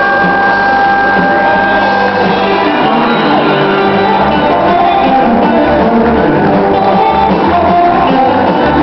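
Live band playing an instrumental passage: held guitar notes, then sliding guitar notes over a pulsing bass line.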